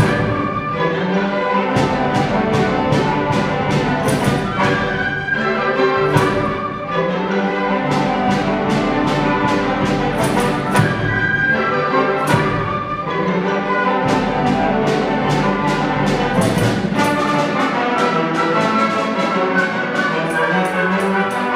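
Music-school symphony orchestra of strings, woodwinds and brass playing an orchestral piece live, with a regular beat of sharp percussion strokes through most of it.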